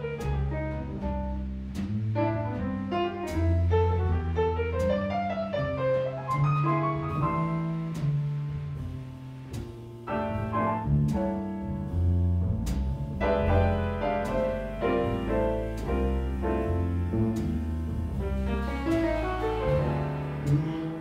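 Jazz trio playing a swing tune: fast piano lines over plucked double bass notes, with drums and cymbal taps keeping time.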